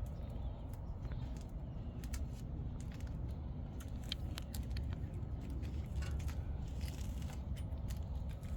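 Scattered light clicks and metallic taps of tools and brake parts being handled during a brake pad replacement, over a steady low rumble.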